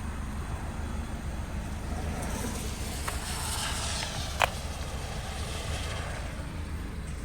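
A hiss from a 2025 Honda HR-V swells from about two seconds in, is strongest around the middle and fades again, over a steady low hum. A sharp click comes about four and a half seconds in. The hiss is of unknown origin to the owner.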